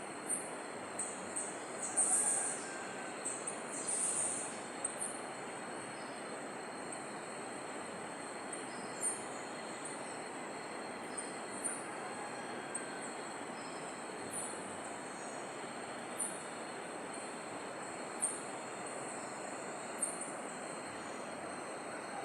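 Steady rushing of water running down a hillside stream, with short high-pitched bird chirps repeating about every two seconds and a louder flurry of calls a few seconds in.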